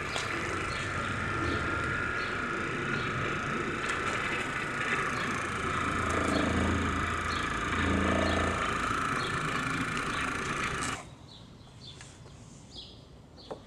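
Corded electric orbital polisher with a foam pad running steadily against a vehicle door panel, with two brief deeper swells about six and eight seconds in. The motor shuts off suddenly near the end, leaving faint bird chirps.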